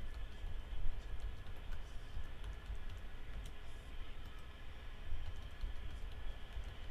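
Typing on a computer keyboard: a loose run of key clicks with short pauses between words, over a low steady hum.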